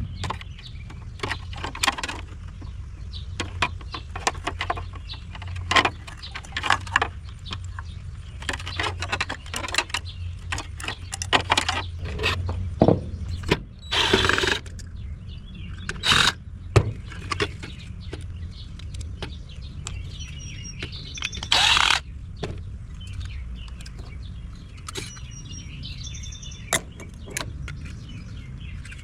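Irregular clicks, knocks and a few short scrapes of plastic and metal parts of a juicer being taken apart with hand tools, over a steady low hum. Faint bird chirps come in during the second half.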